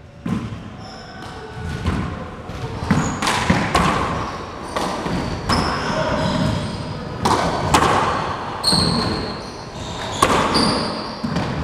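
Handball rally in a four-wall court: a small rubber ball slapped by bare or gloved hand and smacking off the walls and hardwood floor, several sharp smacks at irregular intervals. Sneakers squeak briefly on the hardwood between hits.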